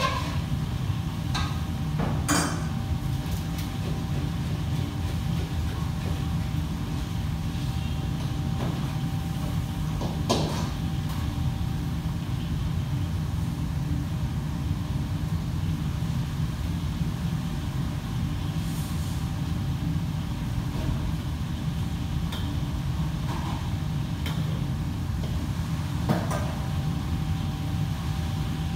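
Commercial kitchen ambience: a steady low machine drone with a faint steady whine above it, broken by a few sharp clinks of utensils or dishes, about two, ten and twenty-six seconds in.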